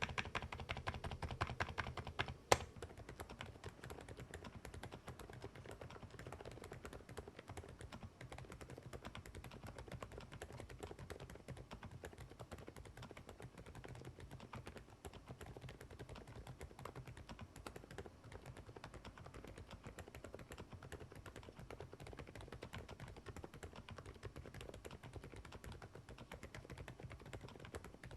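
Continuous fast typing on silent mechanical keyboards, soft muted key presses. The first two and a half seconds are a little louder, on an Interpixel IPK 104 PRO with silent Peach V3 switches. After a single sharp click, the rest is a softer, steady stream on a Freeflow Archon F1 PRO MAX with OUTEMU silent Lime switches.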